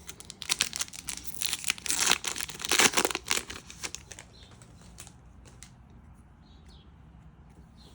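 A foil trading-card booster pack being torn open and crinkled, with dense crackling for the first few seconds, loudest around two to three seconds in. After that come a few faint ticks of cards being handled.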